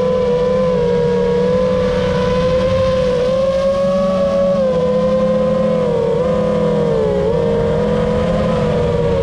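A motor running steadily with a loud, high hum that wavers slightly in pitch and dips briefly twice, over a low rumble.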